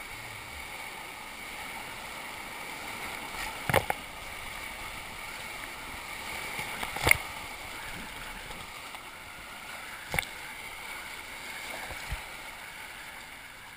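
Rushing whitewater of a water-park rapids river heard from an inner tube riding it, with sharp knocks about 4, 7 and 10 seconds in and a smaller one near the end.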